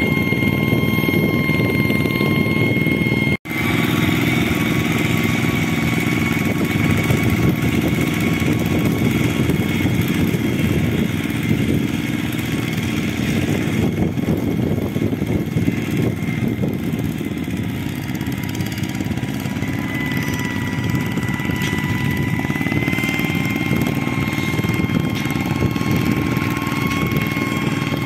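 Two-wheel walking tractor's single-cylinder diesel engine running steadily under load as the tractor churns through flooded paddy mud. The sound cuts out for an instant about three seconds in, then the engine continues.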